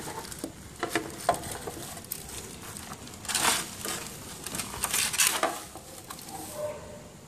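Handling noise from a white plastic housing and an electrical unit being lifted and turned over by hand: scattered clicks and knocks, with two short, louder scuffs about three and five seconds in.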